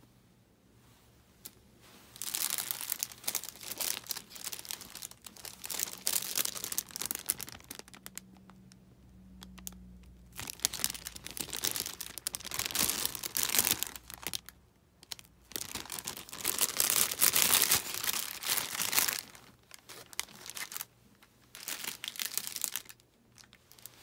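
Thin clear plastic bag crinkling as it is handled and a knit beanie is slid into it, in repeated bursts with short pauses.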